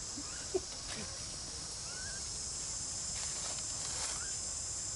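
Steady high-pitched insect chorus in the forest, with a few faint short rising chirps and a brief sharp sound about half a second in.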